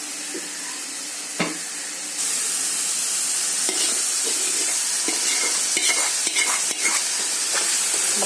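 Onion-tomato masala sizzling in hot oil in a pan. About two seconds in the sizzle grows louder as boiled chicken pieces go in, and a spoon then scrapes and clicks against the pan as it is stirred.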